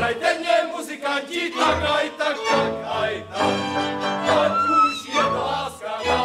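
Valachian folk music from a cimbalom band led by fiddles, with a group of voices singing.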